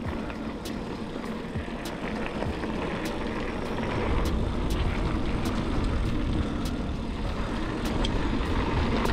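Mountain bike rolling over dirt singletrack: a steady rumble of tyre and wind noise on the camera microphone, with scattered sharp clicks and rattles from the bike. The rumble grows louder about four seconds in.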